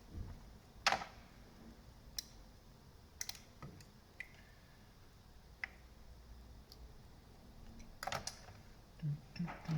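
Scattered light clicks and taps of small tools and connector parts being handled during soldering work, with a few sharper clicks together near the end.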